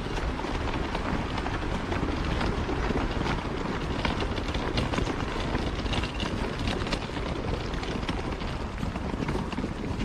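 Footsteps crunching on a gravel trail, a quick irregular patter of short steps, over a steady low rumble.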